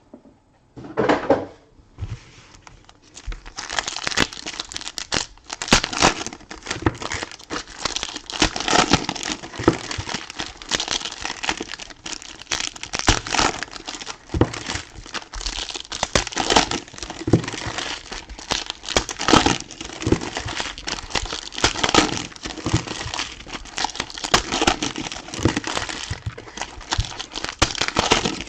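Trading-card pack wrappers being crinkled and torn open by hand, with cards shuffled between them. A brief rustle about a second in, then continuous crinkling from about three and a half seconds on.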